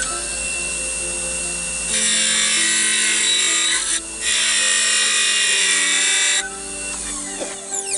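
Skew chisel cutting into spinning wood on a King Industrial KWL-813VS variable-speed wood lathe: a steady hissing cut that grows heavier about two seconds in, eases briefly near four seconds, then lightens again over the last second and a half.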